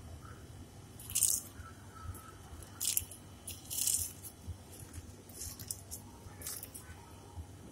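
A hand mixing small raw fish with raw egg in a steel bowl: wet rustling of the fish against each other and the bowl, in several short bursts, the loudest about a second in and again around three to four seconds in.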